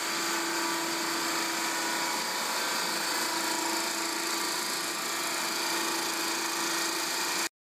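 Cyclone WHE-252 waste heat steam engine running steadily on a dynamometer under load, making about 6 horsepower net on 200 psi, 600°F steam: an even hiss and whir with a steady low hum. It cuts off suddenly near the end.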